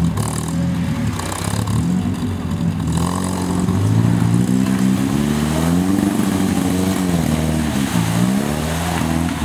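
Off-road vehicle's engine revving under load, its pitch climbing and falling several times as the throttle is worked, with a dip and a fresh rise near the end.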